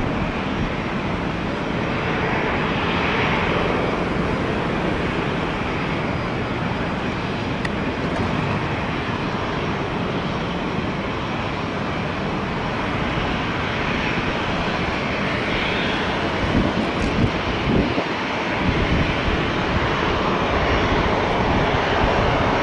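Jet engines of a British Airways Boeing 787 Dreamliner, Rolls-Royce Trent 1000 turbofans, running as the airliner rolls along the runway. The jet noise is a continuous, steady rush.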